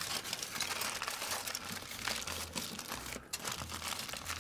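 Aluminium foil crinkling and crackling as it is folded and crimped shut into a packet by hand, with a brief pause about three seconds in.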